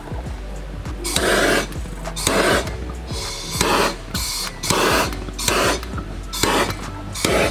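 About eight short rasping rub strokes, unevenly spaced, as something is rubbed or wiped against a hard surface, over faint background music.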